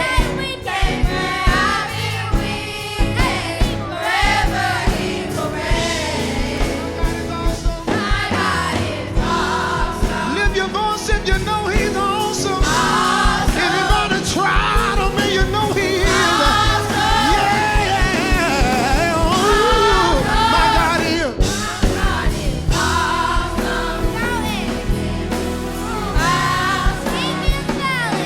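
Gospel choir singing with band accompaniment and a steady drum beat.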